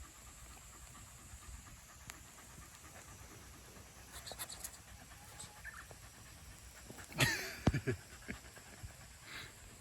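Shiba Inu dog panting, with a short loud scuffle and thump about seven seconds in.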